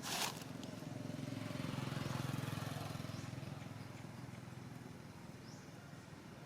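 A sharp noise right at the start, then a motor vehicle's engine hum that grows louder over a couple of seconds and fades away as it passes. A few faint high chirps come near the end.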